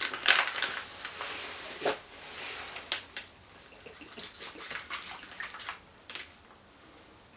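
A plastic MRE beverage pouch crinkling as it is handled, then water poured from a plastic military canteen into the pouch, a soft trickling pour with a few small knocks and rustles.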